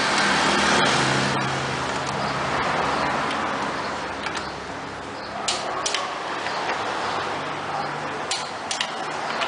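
Several sharp clicks, some in pairs, from hand tools tightening the ignition coil bolts to 10 Nm, over a steady workshop hum.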